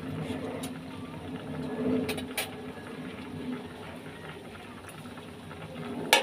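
Milkfish-and-bitter-gourd paksiw broth simmering in an aluminium wok, a steady bubbling with a few small pops. Right at the end an aluminium lid clanks down onto the wok.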